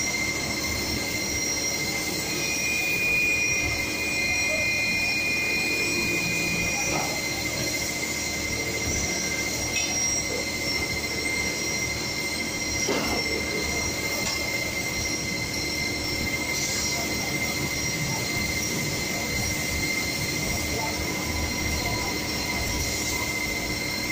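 Steady drone of factory machinery with several steady high-pitched whining tones. A second, higher whine joins from about two to seven seconds in, and a couple of light knocks come later.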